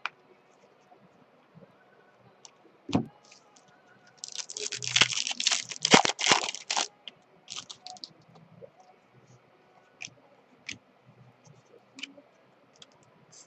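Trading card pack wrapper crinkling and rustling as it is handled and opened, loudest about 4 to 7 seconds in. Before it come scattered clicks and a knock; small ticks of cards being handled follow.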